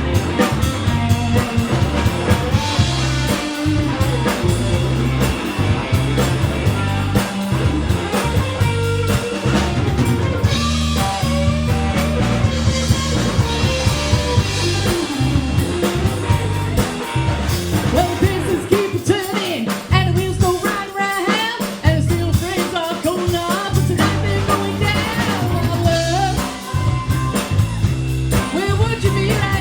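A band playing a rock song: drum kit, a repeating bass line and guitar, with a lead line that bends in pitch, most prominent in the second half.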